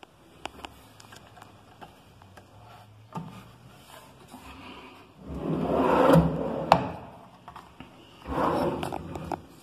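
A vanity cabinet drawer being handled: scattered light clicks and knocks, then two spells of sliding and rubbing. The first comes about five seconds in and is the louder, with a sharp click in it; the second comes near the end.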